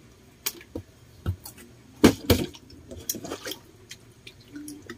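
Partly filled plastic water bottle tossed and knocking down on a hard floor, its water sloshing: a string of sharp knocks, the loudest two in quick succession about two seconds in.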